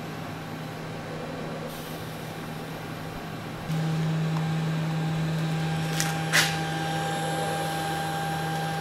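Cooling fans of cheap eBay H11 LED low-beam headlight bulbs humming steadily; the fans are starting to wear out. The hum jumps louder about four seconds in, and two sharp clicks come about six seconds in.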